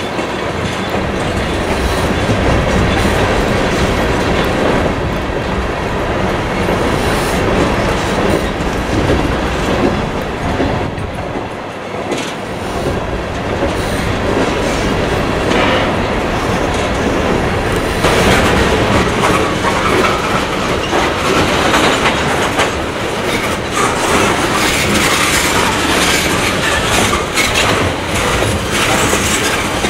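Freight train of tank cars rolling past, with steady steel-wheel and rail noise throughout.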